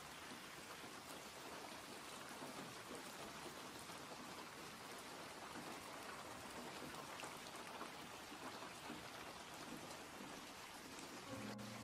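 Faint, steady rain-like hiss with a fine crackle; a few notes of background music come in near the end.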